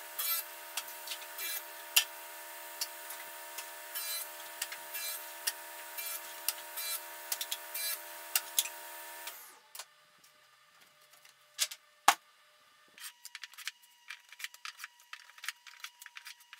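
Table saw running with a steady whine while a thin quarter-inch plywood panel is fed through and cut in two, with sharp clicks over the motor. The sound stops suddenly about nine seconds in and is followed by faint clicks, then a thin steady tone with rapid ticking.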